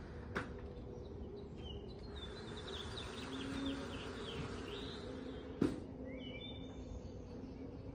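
Outdoor ambience of birds chirping over a steady insect hum, with two sharp clicks, one about half a second in and a louder one a little before six seconds.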